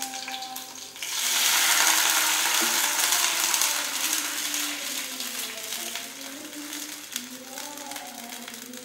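Water poured into a wok of shallots and garlic frying in hot oil: a sudden loud burst of sizzling about a second in that slowly dies down as the water takes up the heat.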